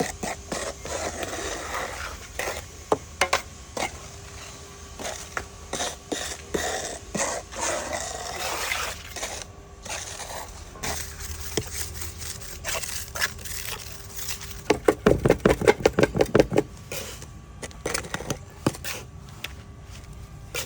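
Hand tools scraping and knocking while working cement, with scattered clicks. About fifteen seconds in comes a quick run of about a dozen sharp taps.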